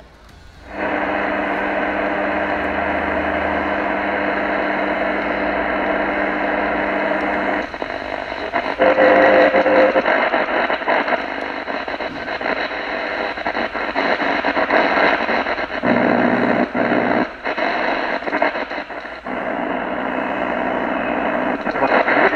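Radio hiss and static, loud and steady with a buzzing hum through it. The sound shifts abruptly several times, as when a radio is being tuned between stations.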